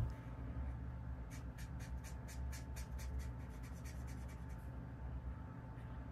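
Quick scratchy strokes of writing on paper, bunched between about one and three and a half seconds in, over a faint steady hum. A single sharp clink with a brief ring comes right at the start.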